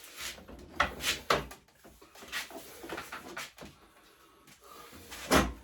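Scattered knocks and clunks of tools and equipment being shifted around a workbench, the loudest near the end.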